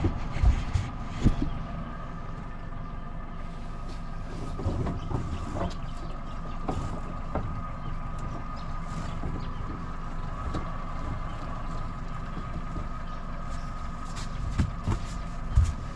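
Outboard motor idling steadily, with scattered knocks and clunks of gear being handled on the boat's aluminium hull near the start and end.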